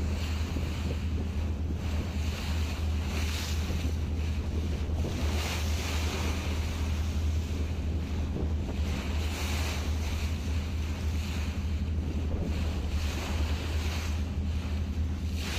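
Boat under way at sea: a steady low engine drone under the rush and splash of waves along the hull, which swells every second or two, with wind buffeting the microphone.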